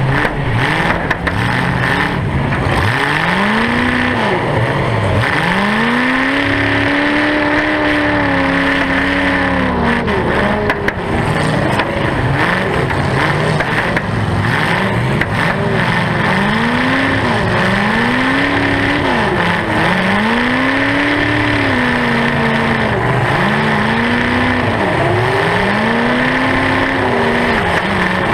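Demolition derby car's V8 engine with open zoomie headers, close to the microphone, revving up and down over and over as the car drives and manoeuvres. A few short knocks come near the start and about ten seconds in.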